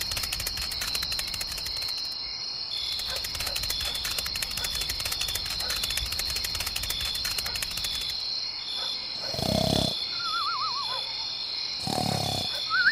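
Small geared electric motor of a DIY mini tractor running, with a fast even rattle of clicks and a steady high whine. Later, three short low roar-like sounds and a wavering, falling tone sound over it.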